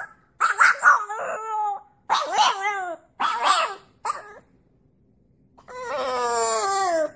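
French bulldog howling: several short, wavering yowls in the first four seconds, then one long howl that slides slowly down in pitch near the end.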